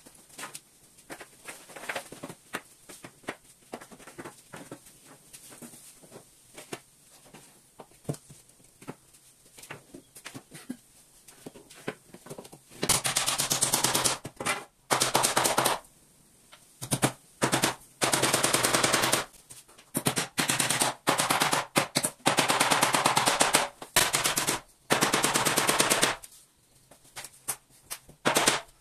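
Scattered light taps and knocks, then, about halfway through, a power tool runs in repeated bursts of one to three seconds, each a loud, fast rattle, stopping and starting again and again.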